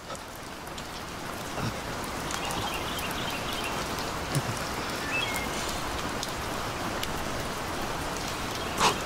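Rain falling steadily, a hiss of drops that builds a little over the first couple of seconds, with a sharp single tick near the end.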